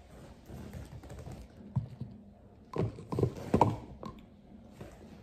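Light taps and clicks of a vinyl Funko Pop figure and its cardboard box being handled and set down, with a cluster of sharper knocks about three seconds in.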